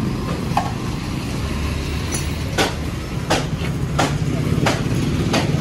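Steady low motor-vehicle rumble, with a run of five sharp knocks, evenly spaced about two-thirds of a second apart, starting about halfway through.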